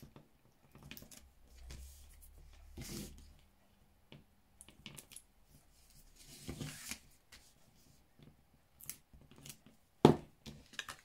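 Backing paper being picked up and peeled off strips of double-sided tear-and-tape on a cardstock box, with card rustling, short swishes and small clicks, and one sharp knock near the end.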